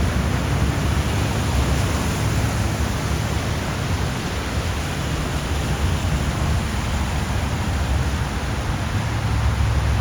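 Steady rushing noise of rain and water on a flooded street, with a low rumble underneath.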